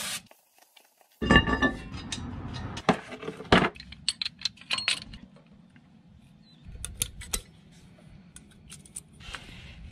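Metal tools and brake caliper parts clinking and tapping in a string of sharp clicks with a metallic ring, during a rear brake caliper service. A louder burst of noise comes about a second in.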